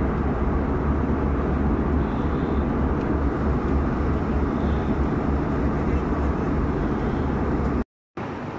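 Airliner cabin noise: the steady low rumble and rush of the engines and airflow heard from a passenger seat. It breaks off for a moment near the end and comes back a little quieter.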